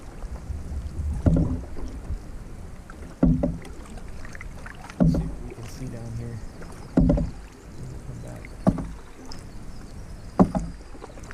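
Canoe paddle strokes in the water, six in a steady rhythm about two seconds apart. Each is a sudden splash as the blade dips in and pulls, over a steady low wash of water.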